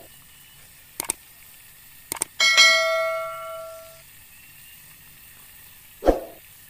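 Subscribe-button animation sound effects: a single mouse click about a second in, then a quick double click. A notification-bell ding follows and rings out for about a second and a half, and a brief hit comes near the end.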